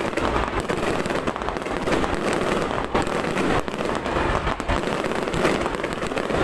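Fireworks display going off: a dense, unbroken run of crackling pops and bangs.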